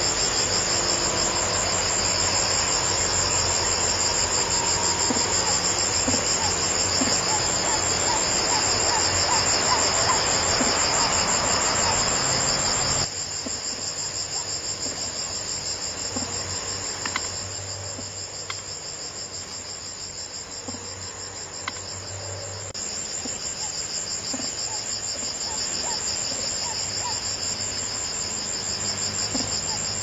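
Insects trilling steadily at a high pitch with a fine, rapid pulse. The whole sound drops suddenly in level about 13 seconds in and comes back up about 23 seconds in.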